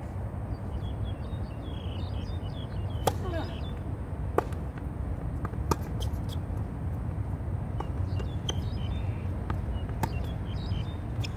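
Tennis rally on a hard court: sharp pops of racket strings striking the ball and the ball bouncing, spaced a second or two apart, over a steady low rumble, with faint bird chirps.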